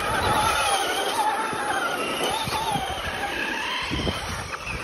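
Electric motors of two toy RC cars whining as they drive, their pitch wavering up and down with the throttle.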